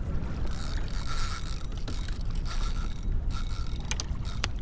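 Fishing reel being worked while a hooked fish is brought in: a run of irregular mechanical clicks from the reel's gears and ratchet.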